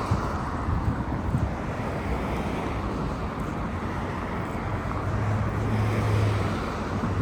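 Wind buffeting the microphone over a low rumble of passing traffic; a steady low engine hum comes in about five seconds in.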